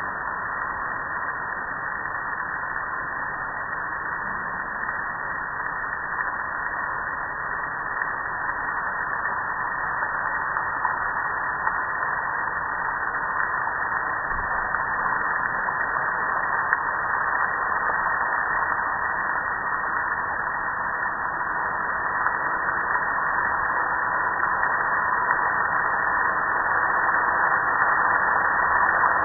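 Steady hiss of water spraying over a metal gas grill, with a faint steady tone underneath; the hiss grows slowly louder.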